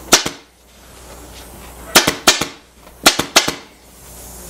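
Pneumatic upholstery staple gun firing staples through fabric into a plywood seat board: three quick bursts of sharp cracks, two shots at the start, three about two seconds in, and two more about a second later.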